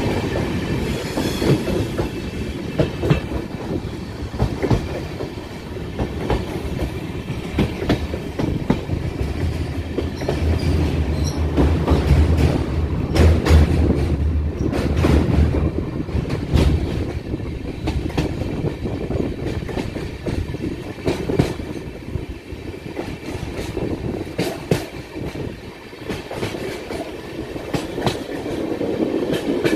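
A moving passenger train heard from on board, with the wheels clattering steadily over the rail joints under a continuous rumble. A high wheel squeal dies away at the very start, and a deeper low hum comes in for several seconds in the middle.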